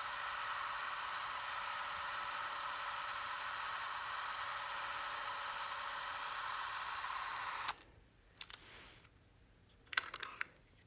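Bolex P-1 8mm clockwork movie camera running empty, its spring-driven mechanism giving a steady whir that cuts off suddenly with a click about three-quarters of the way in. A few sharp clicks follow near the end as a spool is handled in the open film chamber.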